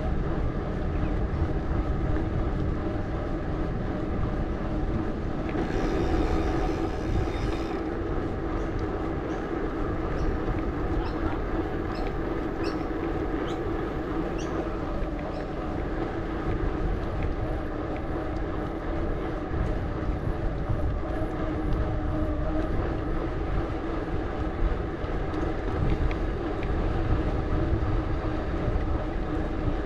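Mountain bike riding noise: a steady hum from the knobby tyres rolling on pavement over a continuous low rumble of wind on the action camera, with a brief hiss about six seconds in.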